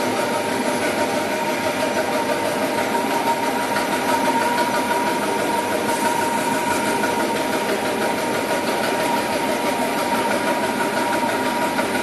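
Dry offset cup printing machine running: an even mechanical din with a steady high whine over it.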